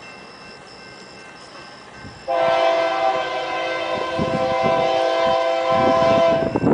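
Union Pacific diesel locomotive's air horn sounding one long, loud chord of several notes, starting a little over two seconds in and lasting about four seconds, from the approaching train. A low rumble builds under it toward the end.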